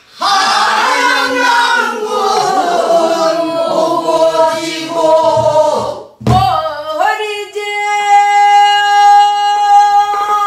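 A woman singing pansori in the full-throated traditional style, her voice sliding and bending between pitches, and accompanying herself on the buk barrel drum with a few low strokes about halfway through. She then settles into one long held note for the last few seconds.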